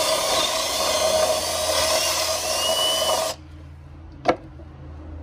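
Cordless drill with a large bit boring through a wooden board to enlarge a hole. It runs for about three seconds and cuts off suddenly. About a second later there is a single sharp knock.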